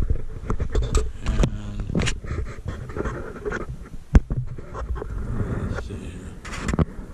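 Handling noise on the microphone as the camera is turned around and repositioned: rubbing, scraping and scattered clicks and knocks, with one sharp knock about four seconds in.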